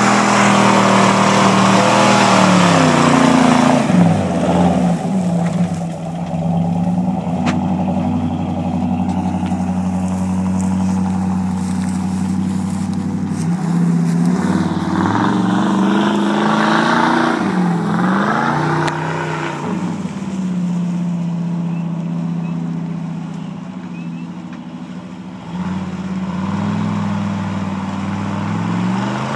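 Big-block Ford 460 V8 in a mud-bogging pickup on swamper tyres, revving up and easing off several times as it drives through deep mud.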